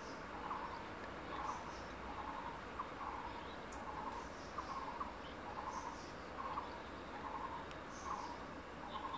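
Forest insect and bird ambience: a steady high insect hiss, and a short trilled call repeating about once every three quarters of a second, with faint high chirps between.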